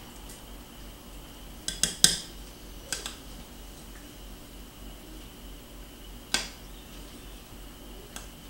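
A utensil stirring a stainless-steel saucepan of creamy potato sauce and clinking against the metal pot: a quick cluster of knocks about two seconds in, a pair about a second later, and single knocks near six and eight seconds.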